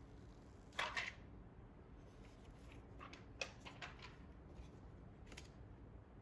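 Objects being handled up close: a short rustle about a second in, then a handful of light clicks and taps.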